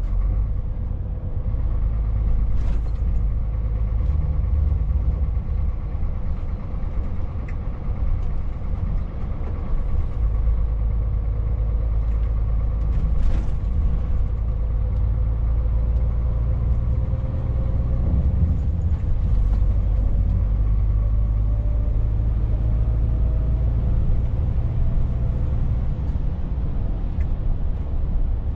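Scania S500 truck's six-cylinder diesel heard from inside the cab while cruising: a steady low drone mixed with tyre and road noise. A faint whine climbs slowly in pitch in the second half, and there are two short clicks, one a few seconds in and one about halfway through.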